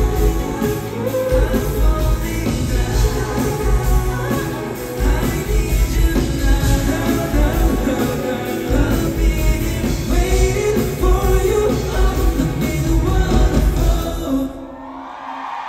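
Live pop-rock song with singing, amplified through a concert hall's PA, with heavy bass. About fourteen seconds in the music breaks off abruptly to quieter crowd murmur.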